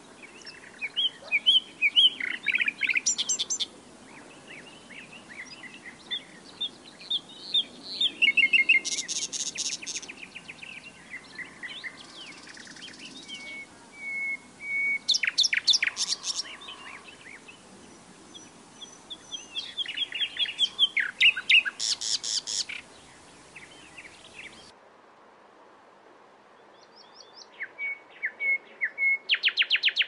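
A large reed warbler singing: loud phrases of rapidly repeated, harsh chattering notes and rattles, with short pauses between them.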